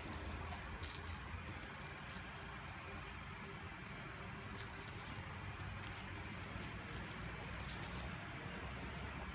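Cat's jingle-ball toy rattling in short bursts as the cat bites and bats at it: a cluster near the start, another about halfway, and more near the end.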